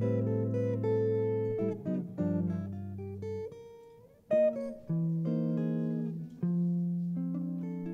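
Archtop jazz guitar playing a slow ballad alone, in sustained chords that ring out and decay, with short gaps between phrases and a sharp accented note about four seconds in.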